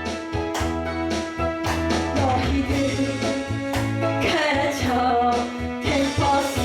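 Music: a song with instruments and a steady beat, with singing at times.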